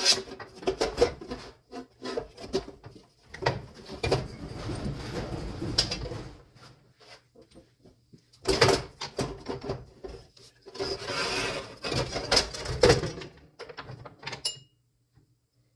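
Hand handling of a chop saw's parts while fitting its blade: a string of clicks and knocks with several stretches of rustling and scraping, dying away shortly before the end.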